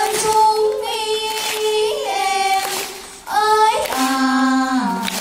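Children singing a Vietnamese chèo folk tune, long held notes with a short break about three seconds in.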